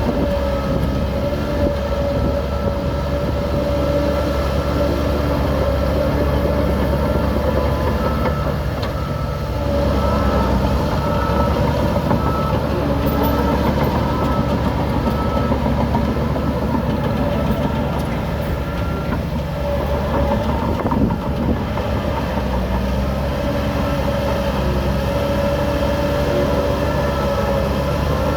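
Heavy diesel machinery running steadily, a low engine drone with a steady whine above it.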